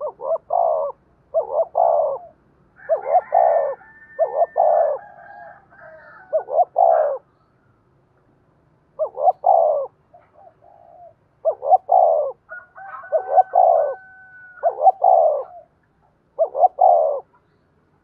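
Spotted dove cooing: repeated short phrases of two or three deep, rolling coos, each under a second, with pauses between phrases and one longer pause about two-fifths of the way through.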